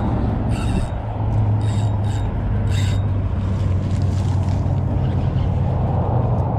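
A steady low engine hum, with a few short rubbing and scraping handling noises in the first three seconds as a spinning fishing reel is worked.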